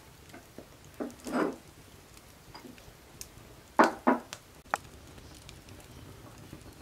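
Wood fire crackling under a cooking pot, with a few sharp pops, about a second in and around four seconds in.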